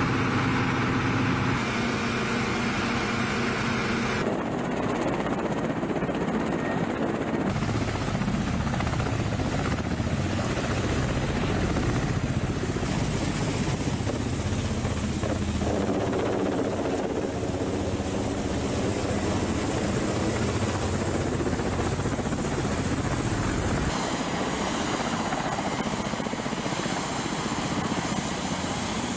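Attack helicopters' rotors and turbine engines running, heard as a string of short takes that cut abruptly from one to the next every few seconds; some takes carry a steady engine whine over the rotor noise.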